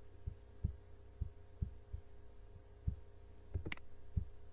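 Dull low thumps at irregular intervals, about eight of them, over a steady low electrical hum, with one sharper click about three and a half seconds in.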